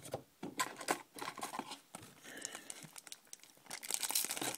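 Baseball card pack wrapper crinkling and tearing open, with short rustles and clicks of cards being handled; the crinkling is densest and loudest near the end.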